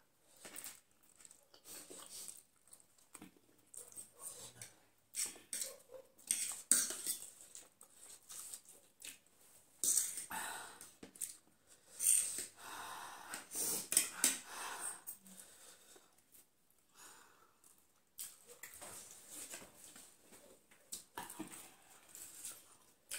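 Close eating sounds of two people having very spicy ramen: noodles slurped and chewed, with frequent short, wheezy breaths and sniffs from the chilli heat, and forks now and then touching the plates.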